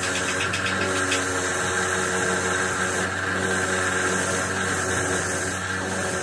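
Electric bench motor spinning a wire brush wheel, with a steady hum and a scratchy hiss as a rusty steel steering rack end is held against the wheel to strip off rust.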